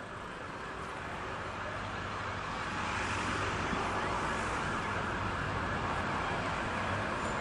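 Illuminated tram approaching along the street track, its running noise and a low hum growing steadily louder as it nears.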